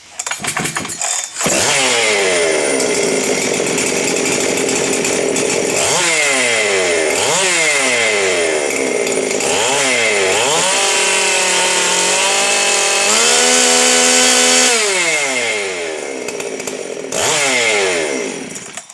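Highly modified Husqvarna 390 XP two-stroke chainsaw, with ported and decked cylinder, advanced timing and a dual-port muffler, starting about a second and a half in. It is then revved up and down several times and held at high revs for a few seconds at a time, turning about 14,700 rpm, before it cuts off near the end.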